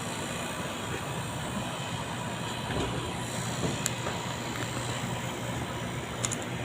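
Refrigeration condensing unit running: a steady fan-and-compressor hum, with a couple of faint clicks near the middle and the end.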